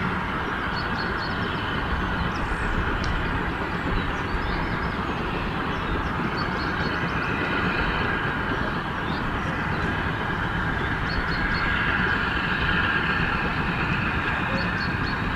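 Avonside saddle-tank steam locomotive hauling a rake of vintage six-wheel coaches, a steady rumble of the train on the move.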